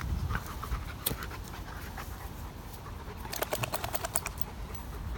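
A Dogo Argentino and a Cane Corso play-wrestling on grass: dogs panting and scuffling, with a quick run of sharp clicks about three and a half seconds in.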